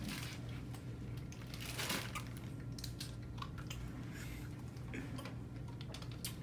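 Crunching and chewing dry, uncooked instant ramen noodles eaten straight from the packet, with small crinkles and clicks from the wrapper and a plastic water bottle being handled, over a low steady hum.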